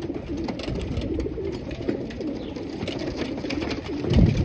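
A flock of young racing pigeons cooing together, many short overlapping coos. A brief low thump near the end is the loudest moment.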